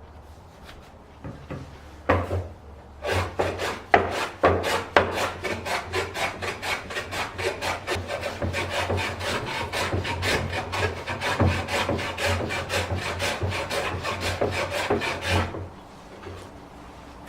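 A hand tool rubbing back and forth on wood in quick, even strokes, about three or four a second. It starts about two seconds in and stops a little before the end.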